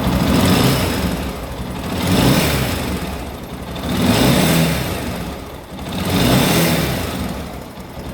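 Honda NX Falcon's 400 cc single-cylinder four-stroke engine revved four times from idle, each rev rising and falling back. The top end runs without cylinder-head noise, its damaged camshaft problem repaired.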